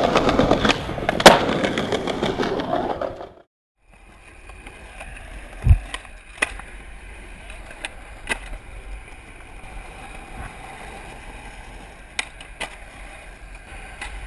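Opens with about three seconds of loud, dense noise with one sharp crack about a second in, which cuts off abruptly. Then a skateboard doing flatground tricks: wheels rolling on pavement, with sharp clacks of the tail popping and the board landing, and one heavy thump of a landing.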